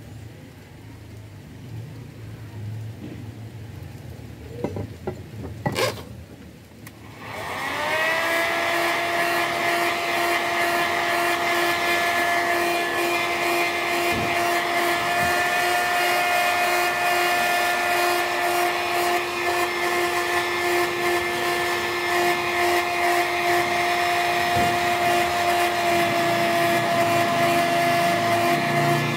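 Handheld electric heat gun switched on with a click about seven seconds in: its fan motor spins up within a second to a steady whine over a rush of blown air, and it runs evenly from then on.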